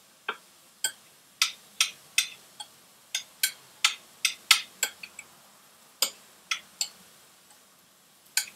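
A utensil clinking against a glass baking dish as a quinoa salad is stirred: a string of irregular sharp clinks with a short ring, about two a second.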